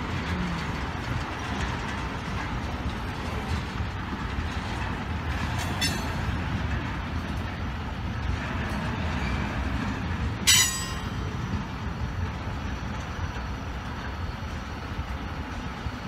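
Freight train tank cars rolling past on the rails, a steady rumble of wheels on track. A light clank comes about six seconds in, and a sharp, louder clank with a brief ring comes about ten seconds in.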